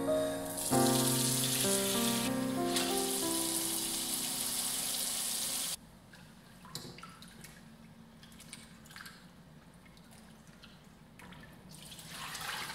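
Tap water gushing into a mixing bowl in a stainless steel sink, cutting off suddenly about six seconds in. After that come faint splashes and swishing as green beans are rinsed by hand in the water-filled bowl, with louder splashing near the end.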